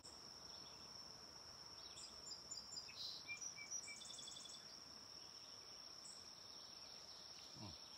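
Faint outdoor ambience: a steady high-pitched insect trill that runs on unbroken, with a few short bird chirps about two to four seconds in.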